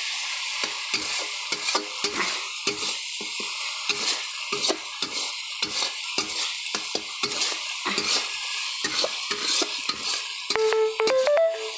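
Tomato-and-spice masala sizzling in oil in an iron kadai while a metal spatula stirs and scrapes it, two or three strokes a second. About ten and a half seconds in, a simple tune of short beeping notes starts up.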